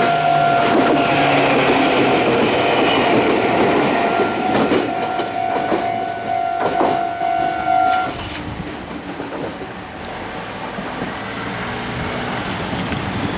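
Meitetsu 6800 series electric train passing over a level crossing, its wheels clacking over rail joints, while the crossing's warning bell rings steadily. The bell stops about eight seconds in, and the train noise then fades.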